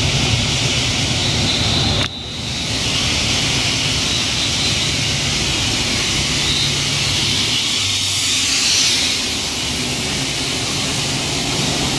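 Thai railway diesel-electric locomotive running as its train pulls slowly into the station, a steady engine drone with a hissing wash of noise over it. The sound breaks off sharply for a moment about two seconds in, then carries on.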